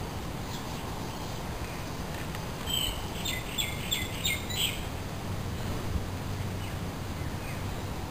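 A bird chirping a quick run of short, high notes about three seconds in, over a steady background hiss.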